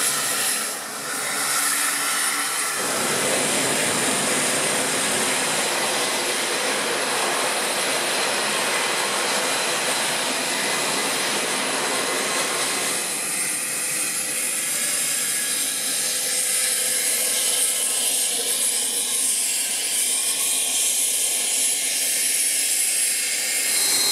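Aircraft turbine engines running on an airfield apron: a steady, loud noise with a thin high whine. The sound changes abruptly about three seconds in and again near the middle.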